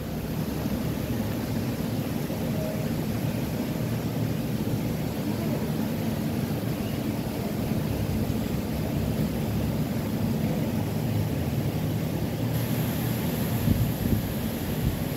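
A steady low rumble, with a brighter hiss joining it about twelve seconds in.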